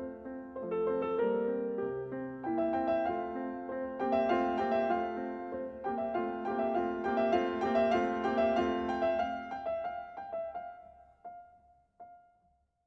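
Piano music, outro background music, with a run of notes that thins out and fades away in the last few seconds.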